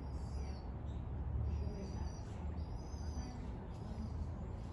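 Birds chirping in short high calls about once a second, over a steady low rumble.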